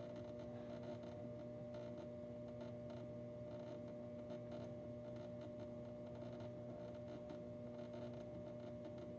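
Steady electrical hum at a low, even level, with faint light ticks now and then.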